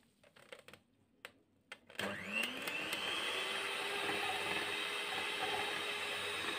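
A few light clicks, then about two seconds in an electric hand mixer switches on. Its motor whine rises as it spins up, then runs steadily at high speed while the beaters whisk butter, sugar and egg whites in a stainless steel bowl.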